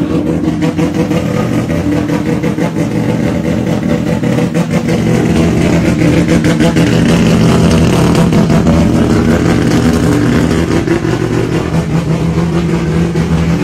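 Rotary engine of a drift car running steadily in the pits, with a rapid pulsing note that gets a little louder about halfway through.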